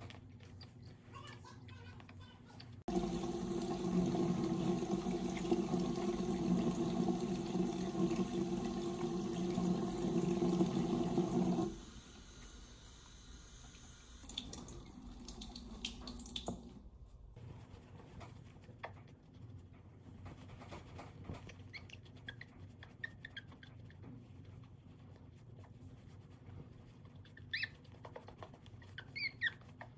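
Bathroom sink tap running water, splashing over a puppy being rinsed. It is loud and steady for about nine seconds, then quieter. Near the end a puppy gives a few short, high whimpers.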